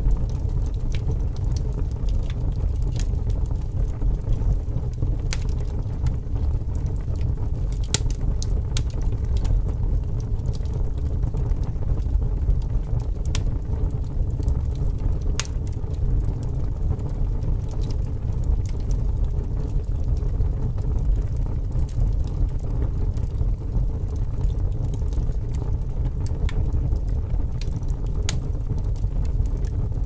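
Campfire burning: a steady low rumble of flames with sparse, irregular crackles and pops from the burning wood.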